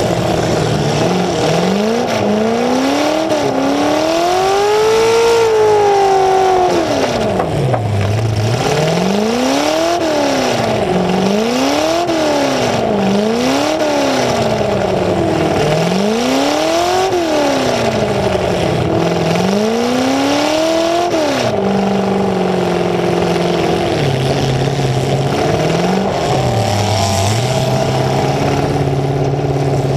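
Full-size demolition derby car's engine revving up and down in repeated surges, roughly one every one and a half seconds, then settling to a lower, steadier run for the last third.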